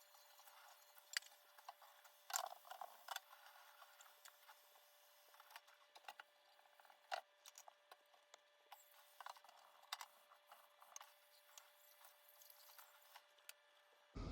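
Faint, scattered clinks and knocks of dishes being unloaded from a dishwasher and put away, over a faint steady hum.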